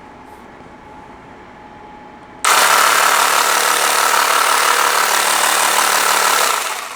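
TimTam Power Massager V1.5 percussion massage gun switched on about two and a half seconds in, running with a loud, steady mechanical buzz, then dying away near the end.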